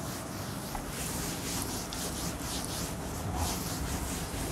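Chalkboard duster rubbing across a chalkboard in repeated back-and-forth strokes, wiping off chalk.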